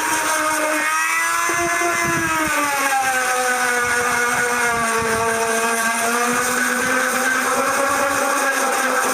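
Dremel rotary tool with a sanding bit running against a dried sheep pelt: a steady high whine whose pitch sags through the middle and rises again near the end.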